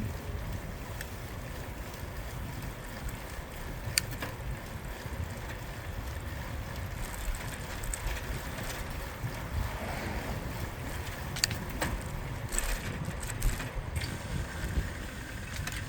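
Wind rumbling on the microphone over the tyre and road noise of a bicycle riding through city streets, with a few short sharp clicks about four seconds in and again near the end.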